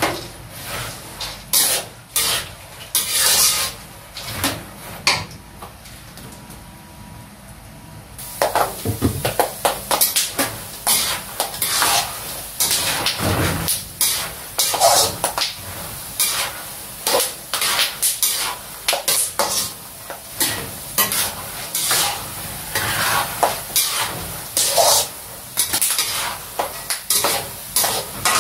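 Metal spatula scraping and stirring peanuts around a large aluminium wok in quick, irregular strokes, over the sizzle of peanuts frying in oil. The stirring eases off for a few seconds around four seconds in, then picks up again and runs on busily.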